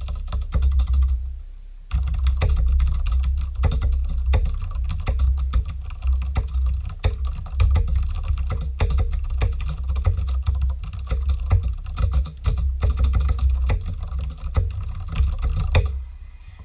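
Typing on a Ducky One TKL mechanical keyboard with Cherry MX Red linear switches and stock keycaps: a dense, rapid clatter of keystrokes, with a short pause just over a second in.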